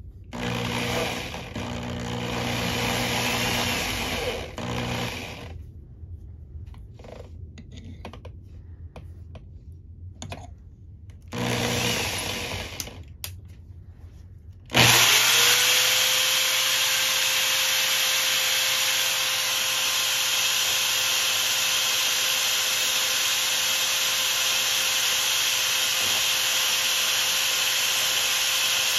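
Electric drill with a keyed chuck spinning a brass part on a threaded rod: two short runs in the first half, then about halfway through the motor starts with a rising whine and runs at a steady speed. Near the end a flat file is held against the turning brass, rubbing it like a makeshift lathe.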